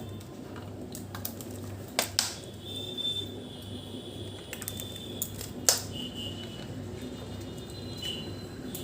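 A few sharp clicks of a container or utensil against a frying pan as oil is poured in, over a steady low hum.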